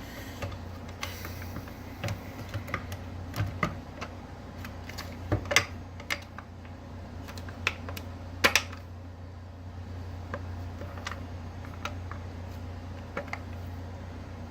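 Irregular light clicks and taps of tools and small parts being handled while a mixer grinder's motor is taken apart, the sharpest pair about halfway through, over a steady low hum.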